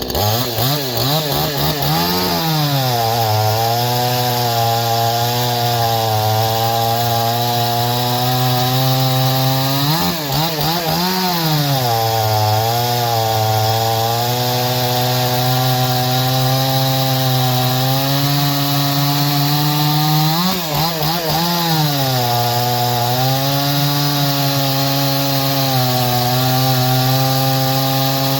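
Unported Proyama two-stroke chainsaw cutting wood at full throttle. The engine holds a steady pitch in the cut and briefly revs higher and drops back three times, about two, ten and twenty seconds in.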